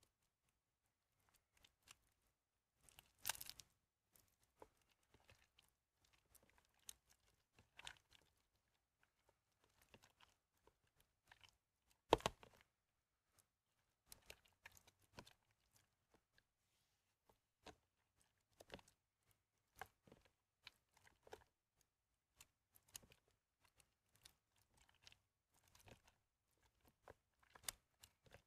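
Soaked, mushy bar soap being squeezed and crumbled by hand: faint, scattered soft crunches and crackles, with two louder crunches at about 3 and 12 seconds in.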